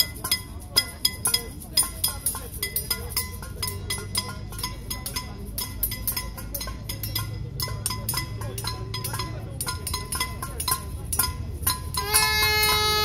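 Hand bells ringing and metal pots being struck over and over, several sharp strikes a second, each leaving a short metallic ring. Near the end a single steady, horn-like tone starts and holds.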